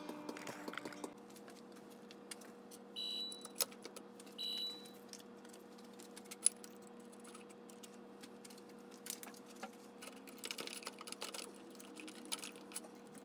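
Faint light metallic clicks and rattles of aluminum extrusion parts and hardware being handled, over a steady low hum. Two short high beeps come about three seconds in and again a second and a half later.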